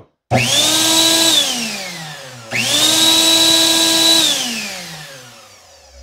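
High-powered blender motor (over 1,000 W) switched straight onto mains with no speed control, twice. Each time it spins up almost at once to a steady high whine at full speed, runs for a second or so, then is cut off and winds down with a falling whine.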